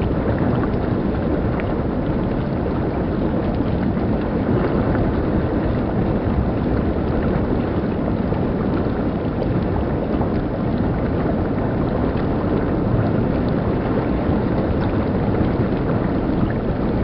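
Shallow stream water rushing over rocks, a steady even rush.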